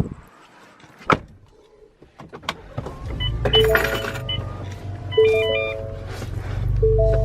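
A vehicle door shuts, a sharp click follows about a second in, and then a Ford Raptor pickup's engine starts and settles into a steady low idle. Repeating two-note dashboard warning chimes and a few short high beeps sound over it.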